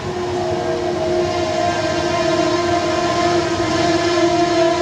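A train's horn sounds one long steady chord of several notes over the rumble of the moving train, growing a little louder.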